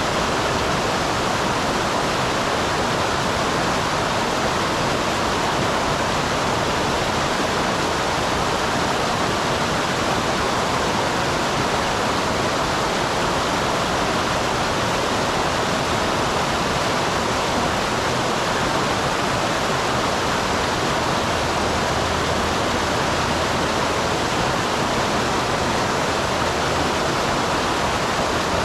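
Small waterfall on a mountain stream: a steady, even rush of falling and flowing water.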